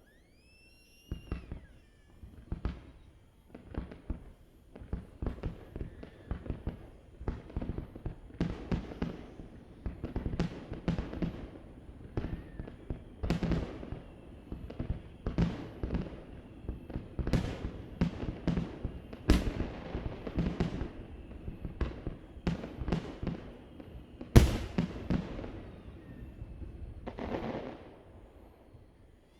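Aerial fireworks shells bursting in a dense, irregular barrage of booms and cracks that echo away, with a rising whistle about a second in. The loudest bang comes towards the end.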